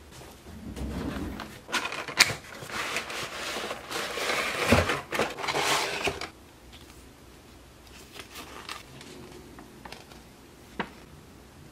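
Model-train packaging being handled: clear plastic tray and paper crinkling and rustling for about six seconds, with two sharp snaps, then softer paper rustling as a folded sheet is opened out, and one light click near the end.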